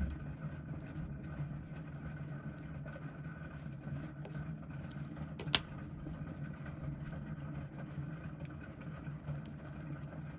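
Steady low background hum with faint, scattered small clicks of fine watchmaker's tools working on a quartz watch movement, and one sharper click about five and a half seconds in.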